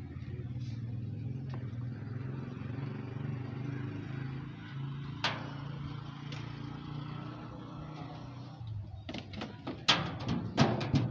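A motor vehicle's engine running steadily as a low hum. About nine seconds in, a quick run of sharp knocks.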